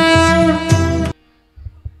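Music with a held, reedy harmonium-like chord and drum strokes, which cuts off suddenly about halfway through. A few soft low thumps follow.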